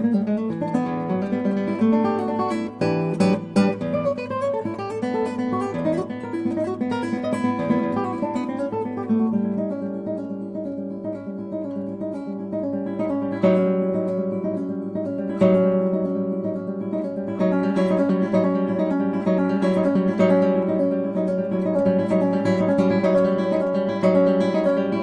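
Background music of acoustic guitar, plucked and strummed, settling into an evenly repeated picked figure in the second half and cutting off suddenly at the end.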